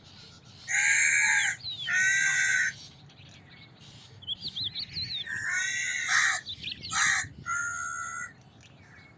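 Crow cawing: two long harsh caws about a second apart, then a quicker run of caws from about five seconds in. Thin chirps of a small bird come between them.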